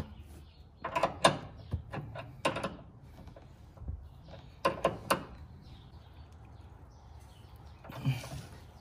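Scattered metal clinks and knocks of tools and suspension parts being handled while a new sway bar end link is fitted, most of them in the first half, including two close knocks around the middle.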